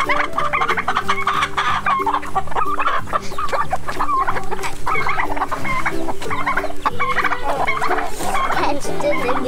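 Chickens clucking in quick, overlapping calls while they peck grain from hands, over background music with held, stepping notes.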